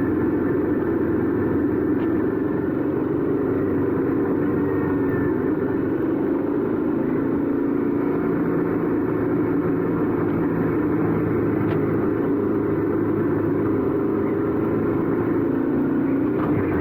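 Royal Enfield 650 parallel-twin motorcycle engine and exhaust running steadily under way, holding an even note.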